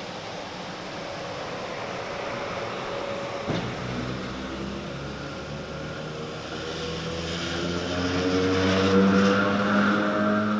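Vintage Sydney 'Red Rattler' electric suburban train passing close by and accelerating, its traction motors giving a rising whine that grows louder as the last cars go past, with a single knock about a third of the way in.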